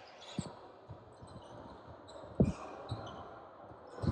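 Basketball bouncing on a hardwood gym floor: a few irregular dribbles, the loudest about halfway through, over the hum of a large hall.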